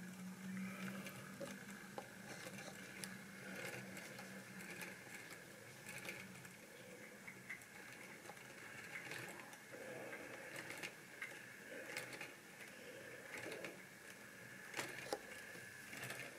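Model railway locomotive's small electric motor running with a steady high whine, and the wheels clicking irregularly over the track as the train creeps along. The whine stops near the end, and a low hum is heard in the first few seconds.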